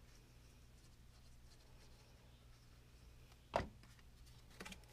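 A plastic glue bottle set down on the table with a single sharp knock about three and a half seconds in, followed by a few faint clicks of card stock being handled, over a low steady hum.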